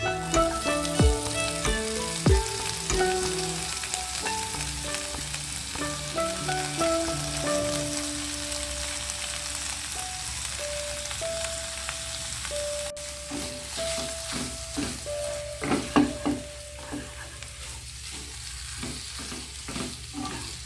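Food sizzling in hot oil as it is stir-fried in a pan, with a steady hiss throughout. In the second half come repeated knocks and scrapes of the stirring utensil against the pan.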